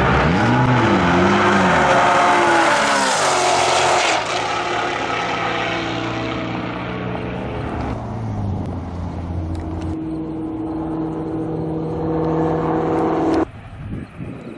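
A street car's engine at full throttle running down a drag strip, its pitch rising and falling twice, then a steadier, lower engine note as the car slows. The sound drops off suddenly near the end.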